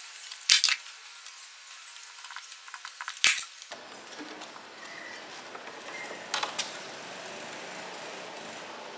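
Sharp metallic clinks of steel hand tools and parts being handled: a ratchet wrench and socket lifted off a nut and set down, and a flat steel bar with a bolt handled. A few separate clinks, about half a second in, around three seconds in, and a pair at about six and a half seconds.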